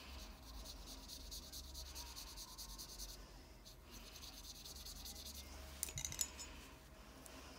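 Paintbrush stroking over watercolour-pencil colour on paper: a soft scratchy rubbing in runs of strokes. About six seconds in, a few sharp clicks as the brush knocks against the glass water jar.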